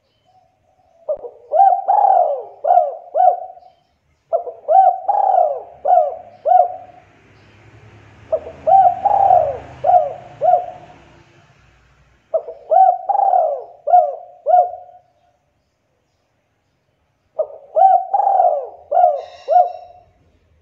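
Spotted dove cooing: five phrases of several quick coos each, repeated a few seconds apart.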